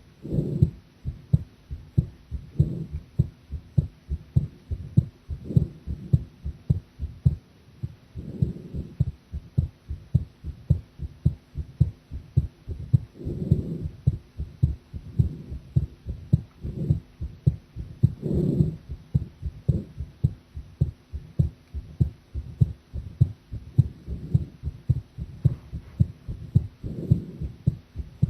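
A woman's heartbeat, a steady run of short low lub-dub thumps, with a soft swell of low noise every few seconds. She found the heartbeat unsteady.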